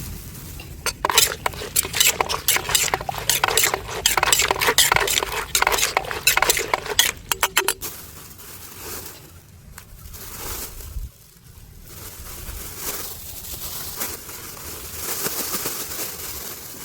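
Utensils clinking and scraping against a dish as food is mixed: a dense run of quick clicks for about seven seconds, then quieter, softer scraping and rustling.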